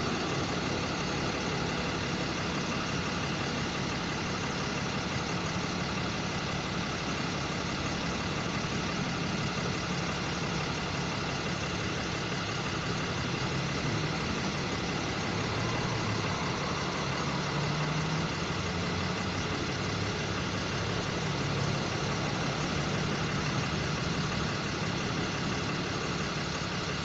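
Vehicle engine idling steadily, a continuous low hum.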